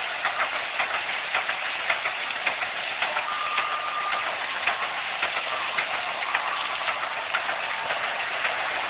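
Vintage steam fire pump working: a steady hiss with frequent quick clicks and knocks from its steam engine.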